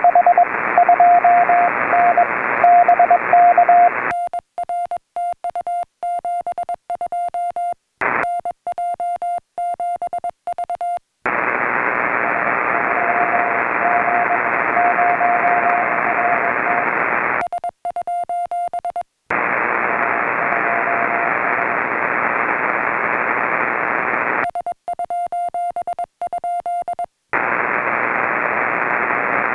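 Morse code (CW) on a shortwave transceiver: receiver hiss carrying a keyed beep, broken three times by stretches where the hiss cuts off and a clean keyed tone sends in its place, the operator's own transmit sidetone. In the hiss between them a very weak station's Morse is only faintly heard and is unreadable near the end.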